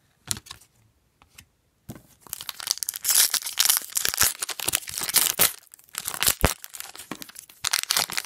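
A foil trading-card pack wrapper being torn open and crinkled by hand: a few light clicks, then dense crackling from about two seconds in, with a brief lull past the middle.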